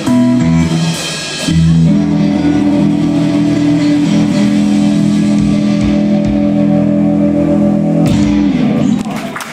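Live rock band with electric guitars, bass and drums playing a few short chords, then holding one long final chord that rings for several seconds and dies away. Audience applause starts near the end.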